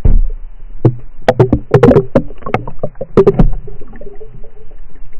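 Kayak paddles knocking and splashing, a quick run of sharp clacks from about a second in to halfway through, after a thump at the very start.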